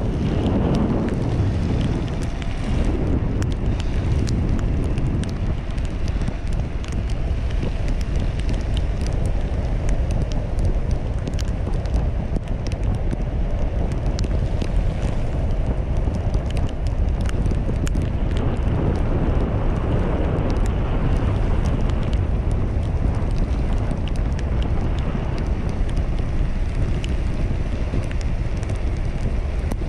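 Wind rumbling on the microphone over a steady hiss of rain, with many scattered sharp ticks throughout.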